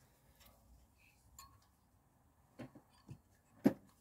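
A few light metallic clicks from a brake pad and its spring clip being handled and offered up against the front brake caliper carrier. There are three clicks in the second half, the last the loudest.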